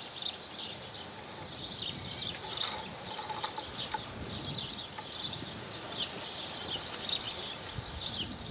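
A steady, high-pitched insect drone with many short bird chirps over it: summer countryside ambience.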